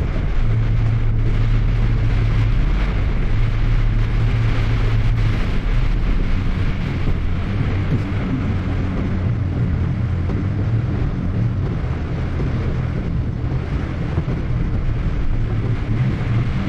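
Heavy downpour pelting a moving car, heard from inside the cabin, over a steady low drone of engine and tyres on the wet road.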